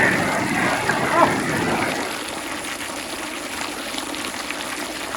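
Steady rain falling, an even hiss, a little louder for the first two seconds. A brief pitched sound, perhaps a voice, comes about a second in.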